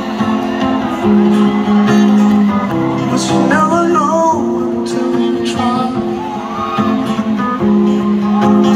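Solo acoustic guitar strummed under a male singing voice, played live through a concert PA and heard from among the audience.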